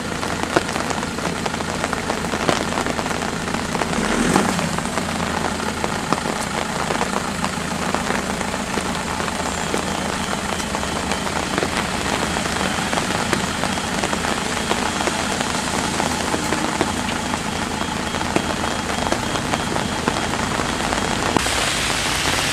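Rain falling onto flooded street water, a steady hiss that turns a little brighter near the end.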